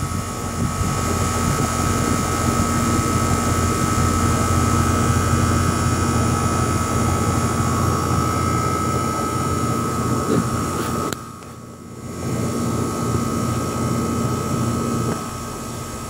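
Outdoor air-conditioner condenser unit running: a steady fan whir and hum with a constant high whine over it. The sound drops away sharply for about a second around eleven seconds in, then comes back.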